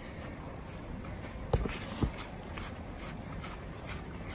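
Workers shuffling and handling gear while fitting a wire grip to overhead trolley wire: rustling and faint clicks over a low steady rumble, with two dull thumps about a second and a half and two seconds in.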